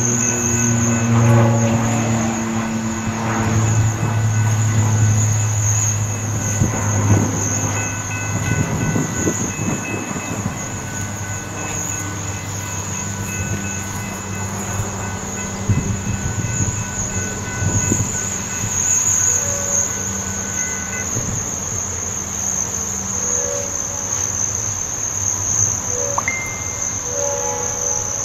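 A train passing: a diesel locomotive's engine hum loudest in the first several seconds, then the clatter of cars rolling by over the rails, easing off toward the end. Insects buzz steadily and high throughout.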